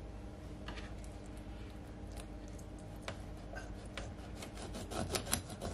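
Chef's knife slicing into the skin and flesh of a whole tilapia on a wooden cutting board: faint, scattered clicks and scraping, coming thicker and faster near the end.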